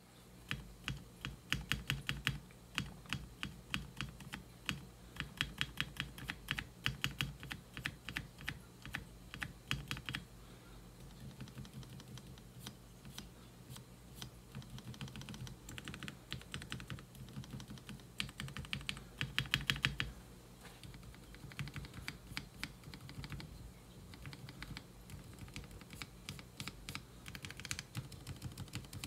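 Keystrokes on a custom mechanical keyboard's stabilized keys (spacebar, shift, enter and backspace), their stabilizers freshly lubricated. The key presses come in quick dense runs through the first ten seconds and again around sixteen and twenty seconds in, with lighter, sparser presses in between and near the end.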